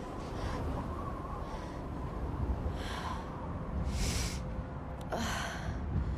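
A distressed woman breathing hard: about five audible breaths and gasps, roughly a second apart, over a low steady rumble of film ambience.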